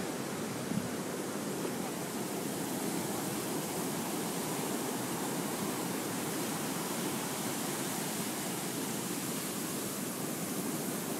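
Heavy storm-driven surf breaking along a beach: a steady wash of noise with no separate wave breaks standing out.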